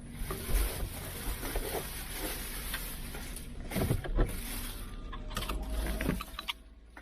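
Road and engine noise inside a moving car: a steady rumble with a few bumps and knocks, fading out at the end.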